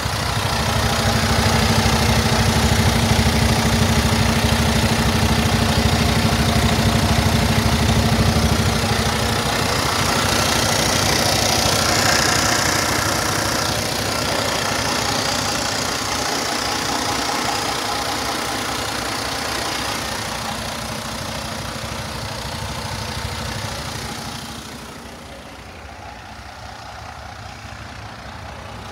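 International ProStar semi truck's diesel engine idling steadily, heard close up at the open engine bay. The sound drops somewhat about a third of the way in and drops further near the end.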